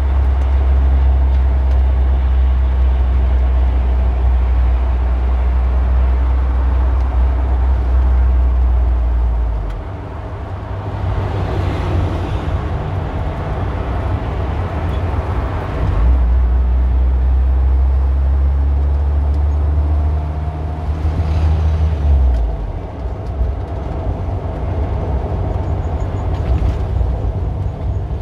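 Car engine running with a steady low hum that turns rougher and uneven at about ten seconds. It steadies again for several seconds before turning rough once more near the end.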